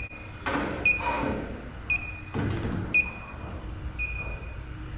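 Electronic refrigerant leak detector beeping steadily at about one short, high beep a second. This is its slow idle rate, meaning no leak is being picked up. Some rustling handling noise runs in between the beeps.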